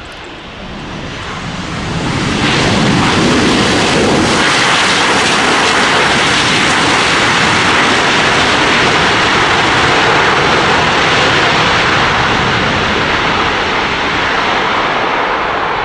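Boeing 737-900ER's twin CFM56 jet engines at takeoff thrust during the takeoff roll. The noise builds over the first two or three seconds, then holds loud and steady.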